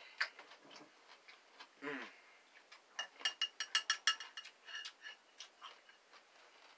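Metal salad fork clinking against the inside of a glass pickle jar while spearing a pickle: a quick run of sharp, ringing clinks lasting about a second, then a few softer taps.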